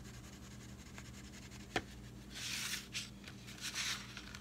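Crayon rubbing on paper in short scratchy strokes: two bursts of coloring in the second half, after a single sharp click a little under two seconds in.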